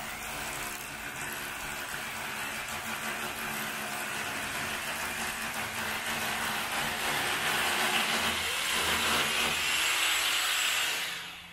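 A small motor or engine running with a steady hum and hiss. It grows louder over about ten seconds, then falls away sharply near the end.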